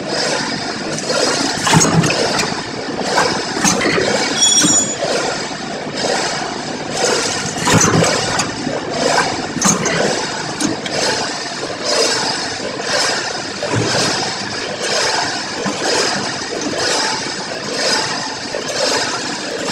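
Vertical form-fill-seal packaging machine running, its heat-sealing jaws and film feed clattering in a steady repeating rhythm of clacks, about one or two a second, as it makes four-side-sealed bags. A brief high tone sounds once, about four and a half seconds in.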